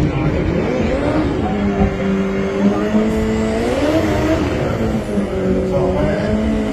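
Drag-racing cars accelerating hard down the quarter-mile strip, their engine notes climbing in pitch and dropping back at each upshift.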